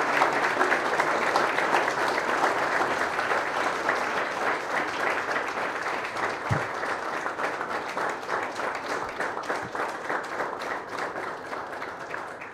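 Audience applauding, dense at first and slowly thinning and fading away toward the end.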